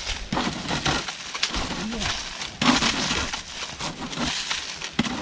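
Hand tool scraping and cutting through dry grass and soil in repeated rough strokes, clearing the ground.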